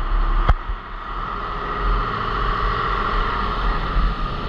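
Motorboat running at speed under power while towing a parasail, with wind rushing over the microphone, and a single sharp click about half a second in.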